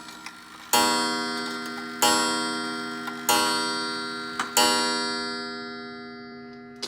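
30-day pendulum mechanical wall clock striking, four ringing bell-like strikes about a second and a quarter apart, each fading slowly; the last dies away over the final couple of seconds.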